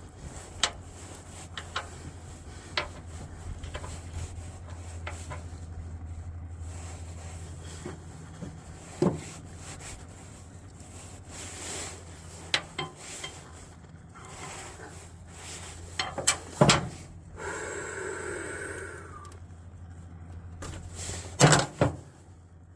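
Rubbing and scraping of hand work on a heavy jumper cable, with scattered sharp clicks and knocks, the loudest about two-thirds in and near the end, over a steady low hum.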